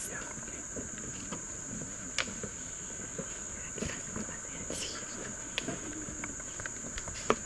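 Rainforest insects keeping up a steady, high-pitched buzz, with a few short sharp knocks, the loudest near the end.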